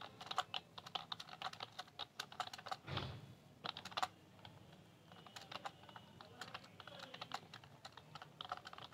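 Typing on a computer keyboard: a steady run of light key clicks, with a short, duller noise about three seconds in.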